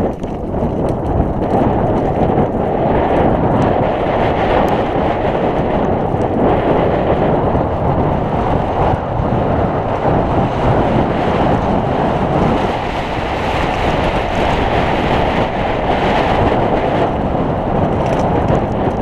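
Steady wind rush on the microphone mixed with a mountain bike's tyres and frame rattling over a loose, rocky trail at downhill speed.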